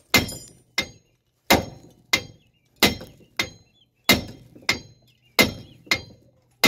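About ten hammer blows on the steel steering knuckle of a Mercury Villager's front suspension, evenly paced at roughly three every two seconds, each with a brief metallic ring. The blows are struck to shock the worn lower ball joint's stud loose from the knuckle.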